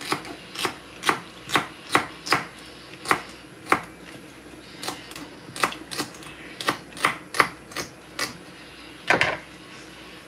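Knife chopping celery into small pieces: sharp, irregular knocks about two a second, with a short pause near the middle and a louder cluster of knocks near the end.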